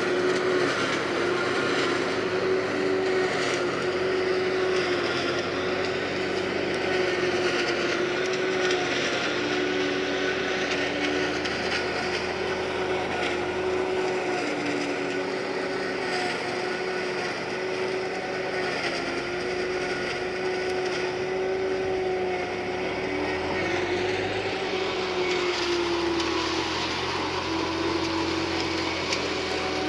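Tractor-driven forage harvester and its tractor running steadily under load, chopping maize for silage. The drone holds steady, its pitch sagging slightly about three-quarters of the way through.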